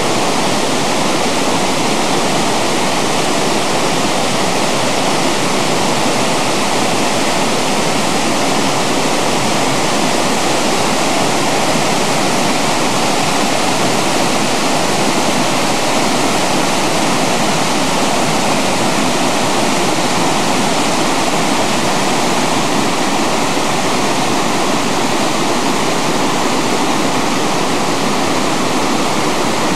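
Steady, loud rush of a mountain waterfall, white water cascading over rocks and boulders.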